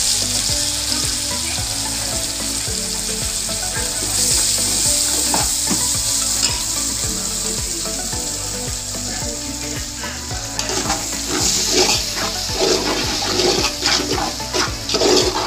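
Onions, mint and spices sizzling as they fry in hot oil in a metal pot, stirred with a metal slotted spoon. The scraping strokes of the spoon against the pot grow louder and more frequent about eleven seconds in.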